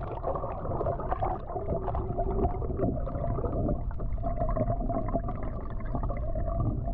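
Water gurgling and sloshing around a moving kayak, dull and low with little treble, with a wavering tone running through it.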